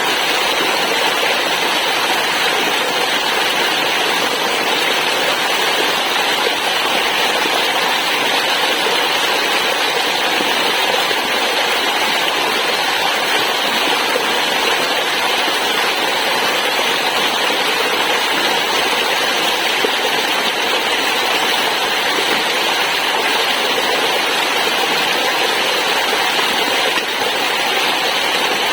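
Waterfall water rushing in a steady, unbroken hiss.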